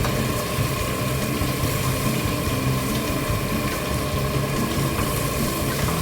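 Pork ribs and potatoes sizzling and bubbling in a pan with a little water added, a steady hiss over a low hum.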